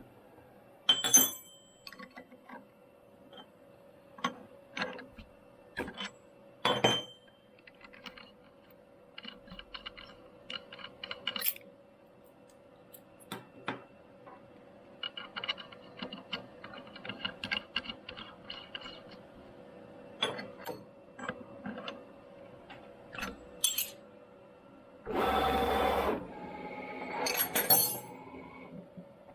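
Scattered light metallic clinks and taps over a steady faint hum from the CNC machine, with a short burst of hissing near the end.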